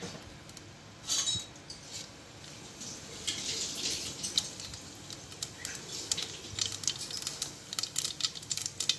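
Mustard seeds frying in hot oil and ghee in a steel pan: a soft sizzle with scattered sharp pops and crackles, which come more often in the second half.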